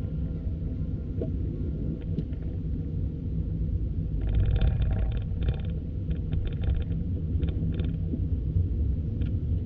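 Steady low rumble of street traffic, with clusters of short crackling sounds higher up, strongest about halfway through.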